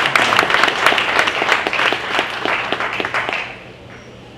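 Audience applauding with many hands clapping, dying away about three and a half seconds in.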